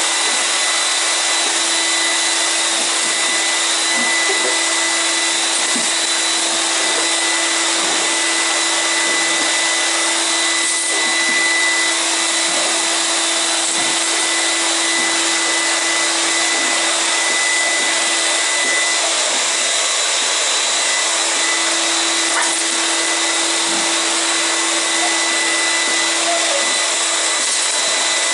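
Steady whirring of an electric motor and fan, a constant rush of air with a low hum and a thin high whine, unchanging throughout.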